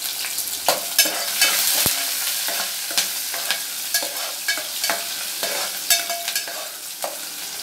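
Chopped onions and green chillies sizzling in hot oil in a metal pot while a ladle stirs them, clinking and scraping against the pot in quick, irregular strokes.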